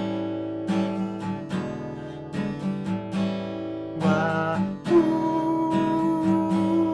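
Acoustic guitar playing a blues instrumental break, with a run of plucked and strummed notes. A long held note comes in about five seconds in.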